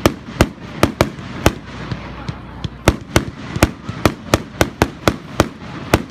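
Fireworks crackling: a string of sharp, irregular cracks, about two to three a second, some louder than others, over a steady hiss.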